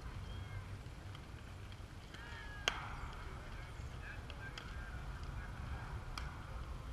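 A single sharp crack of a softball bat hitting the ball about three seconds in, followed about three and a half seconds later by a fainter sharp smack like the ball landing in a glove. Faint shouts from players and spectators, with wind rumbling on the microphone throughout.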